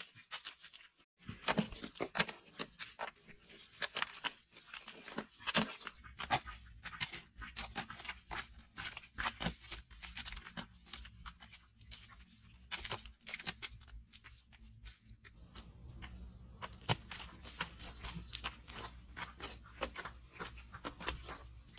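Hands scraping, pressing and smoothing mud plaster and earth on earthen walls: a dense, irregular run of short crunching scrapes.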